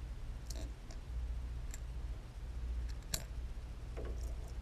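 Sound picked up by a GoPro in its underwater housing while a hard-bodied fishing lure with treble hooks is moved in a tub of water: a steady low hum with a handful of light, irregular clicks.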